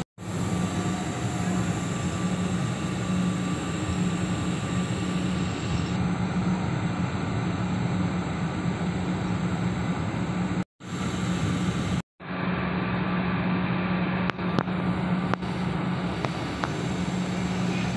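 Steady cabin drone of a jet airliner taxiing, a low hum under a constant rush of noise. The sound drops out briefly twice near the middle, and a few light clicks come near the end.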